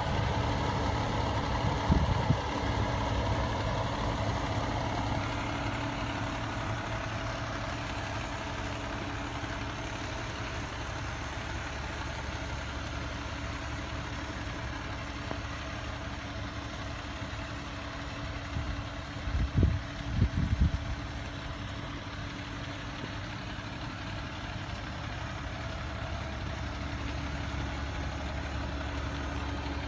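A fire truck's diesel engine idling steadily. There are a few short bumps about two seconds in and again around twenty seconds in.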